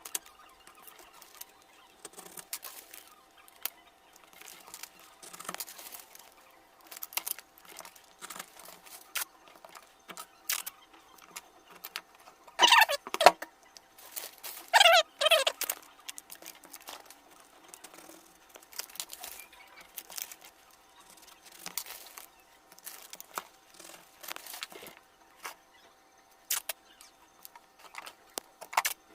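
Crinkling, rustling and scattered clicks of insulating material being handled and fitted onto a lithium battery pack, with two louder squeaky screeches about halfway through.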